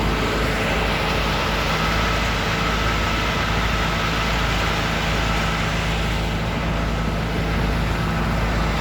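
Road roller's engine running steadily with a deep, even rumble.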